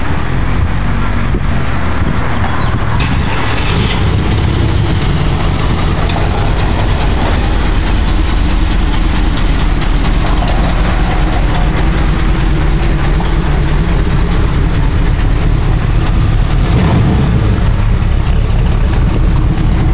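Camaro's Corvette V8 engine idling loudly and steadily, its sound sitting low.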